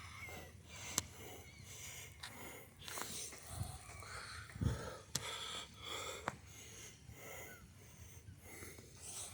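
A flock of gulls calling, many short overlapping squawks. A few low thumps of footsteps are mixed in, the loudest about halfway through.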